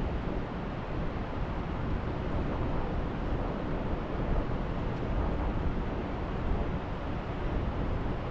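Steady rushing noise of a fast, heavy river current, with no distinct events.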